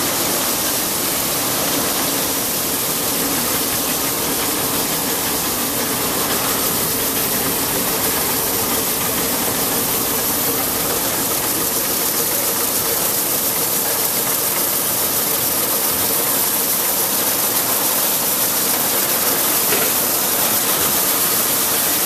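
Automatic glass bottle washing machine running: rotating brushes scrub the bottles inside and out under water spray, a steady, even wash noise with a faint hum of the drive under it.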